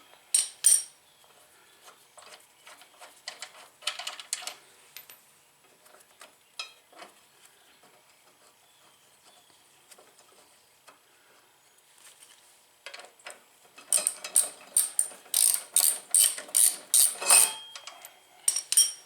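Socket ratchet clicking in bursts while the front brake caliper bolts are backed out. A few sharp clicks come at the start and again about four seconds in, then a long quiet spell, then a fast run of loud metallic clicks over the last five seconds.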